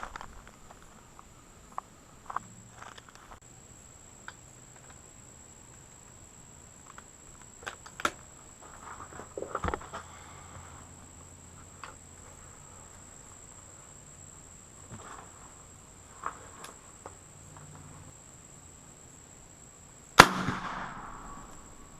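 A single loud gunshot near the end, a sharp crack with a short fading echo, fired from a big-bore gun into a stack of 2x4 boards. Before it come a few quiet clicks and knocks of handling.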